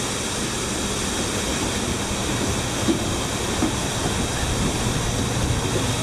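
Steady rushing noise of a large waterfall, with a low hum beneath it and two light knocks about three seconds in.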